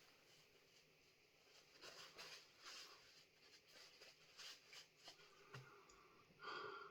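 Near silence: room tone with a few faint scratchy rustles, and one short, somewhat louder sound just before the end.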